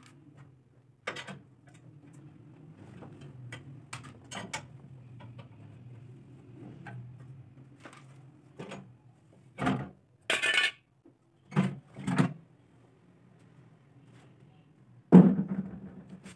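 Metal parts of an old portable generator clanking and knocking as it is taken apart. The fuel tank comes off its frame. Scattered knocks, a run of clanks and a scrape about ten to twelve seconds in, and a loud ringing clank near the end.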